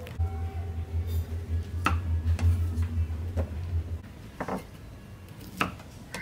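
Cleaver chopping baby corn on a wooden chopping board: several sharp knocks about a second apart, with a low hum under the first few seconds.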